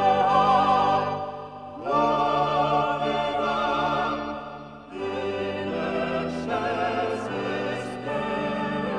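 Choral music with sustained sung notes and vibrato, in three long phrases.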